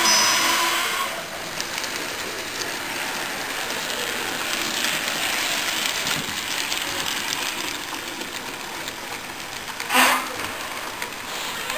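Model steam locomotive and coaches running along a model railway layout's track, with the steady hubbub of an exhibition hall underneath. A short, loud burst of noise comes about ten seconds in.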